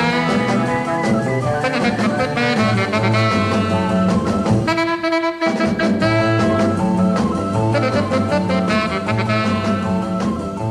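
Late-1950s instrumental rock and roll record: a tenor saxophone leads the melody over bass and drums. About five seconds in, the band drops out for under a second, leaving one held note, then comes back in.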